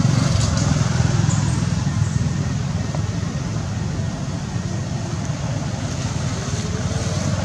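A steady low rumble with an even hiss over it.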